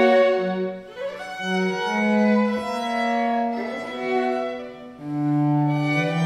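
Chamber string ensemble of violins, violas and a cello playing long held notes, with short breaths between phrases about one second in and again near five seconds, where a lower cello note enters.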